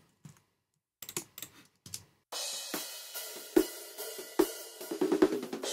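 A few faint clicks, then about two seconds in drum overhead tracks play back, cymbals and hi-hat to the fore. An EQ bell boost in the lower mids brings out the small room's boxy resonance, which the engineer calls unpleasant and cuts hard in the mix.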